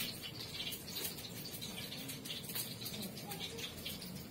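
A mother cat and her kittens chewing boiled fish, a steady run of quick, irregular wet smacking clicks.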